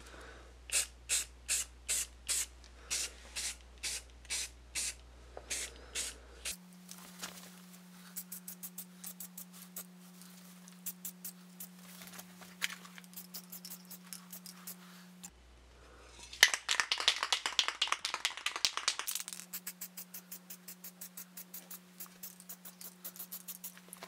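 Hand scrubbing strokes on the metal of a bench vise, rasping back and forth in an even rhythm of about two strokes a second. The strokes turn faster and lighter, then there is a short dense burst of scraping before the steady strokes resume.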